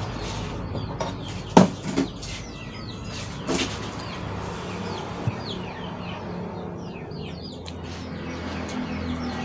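Small birds chirping repeatedly in short rising notes, with a few sharp knocks of tableware being handled and set down on a table, the loudest about a second and a half in. A low steady hum runs underneath.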